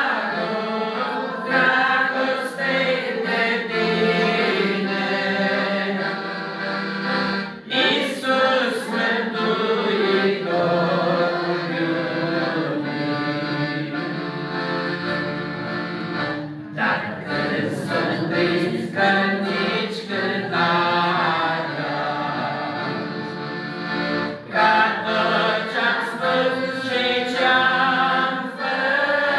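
A woman and a man singing a Romanian hymn to piano accordion accompaniment, the accordion holding sustained chords under the voices.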